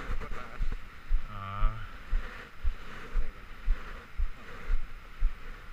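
Low, muffled thumps about twice a second, picked up through a chest-mounted action camera, with a short hum of a man's voice about a second and a half in.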